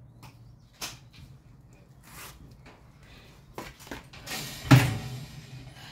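Metal oven tray and wire grill rack being handled inside a Beko cooker's oven: a few light clicks, then a louder scrape ending in a clank about four and a half seconds in.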